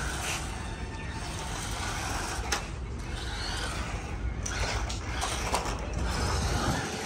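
Toy RC car's small electric motor and plastic wheels running as it drives about on concrete, over a steady low rumble of outdoor noise, with a few sharp clicks.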